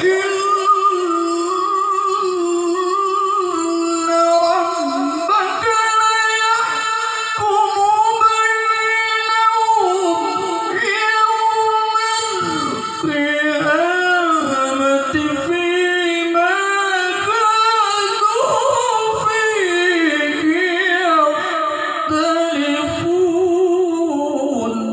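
A qari's male voice chanting Quran recitation (tilawah) in a high register, one long unbroken melodic phrase full of wavering ornaments and melisma. It begins suddenly and fades out at the end.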